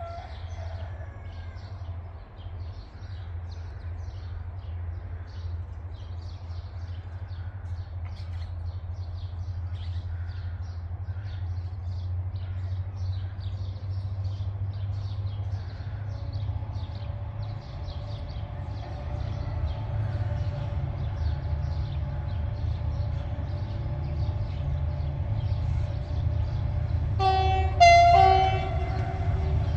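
Diesel-electric locomotive GM 1358 approaching, its low engine rumble growing steadily louder, then sounding its multi-tone horn in two short blasts near the end.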